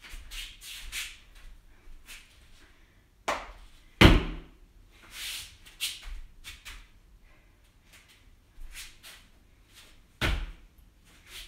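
Hands and body slapping down on a thin exercise mat in forward break-falls: three thumps, about three and four seconds in and again near the end, the one at about four seconds the loudest, with softer rustling between them.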